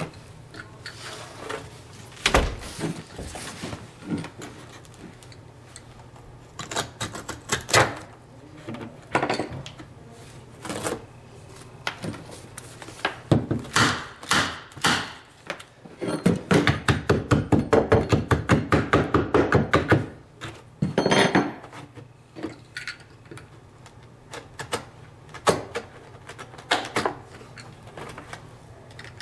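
Tools at work on carpet fitted to a stair riser: scattered clicks and knocks, then a quick run of regular clacks, about five a second, for roughly four seconds past the middle.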